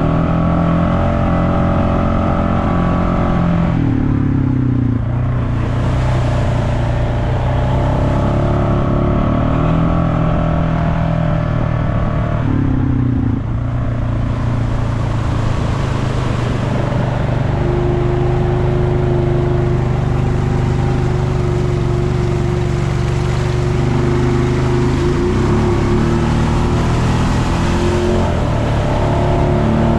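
Off-road vehicle engine running steadily under load, its pitch shifting several times, notably about four and about thirteen seconds in.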